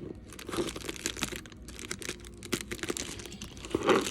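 Packaging being handled: irregular crinkling and rustling with small taps as a mailed shipping package is turned over and examined.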